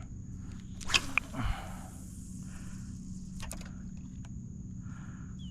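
A cast with a spinning rod and topwater plug: a sharp click about a second in, then a swish of the rod and line paying out, with a few short clicks near the middle.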